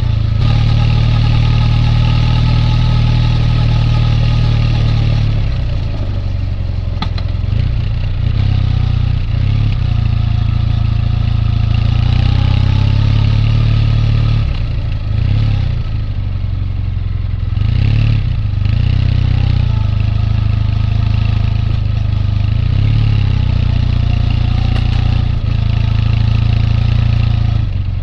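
Triumph Bonneville T214's air-cooled 360° crank vertical-twin engine running, a strong even low note. In the second half the note dips and rises several times, as with throttle changes.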